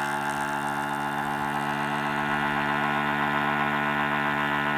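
Outin mini battery-powered portable espresso maker running as it brews, a steady electric hum.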